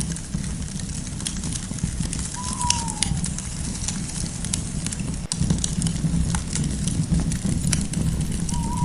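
Campfire crackling with many sharp pops over a steady low rumble. Twice, about two and a half seconds in and again near the end, a short call from a night bird or animal, falling slightly in pitch.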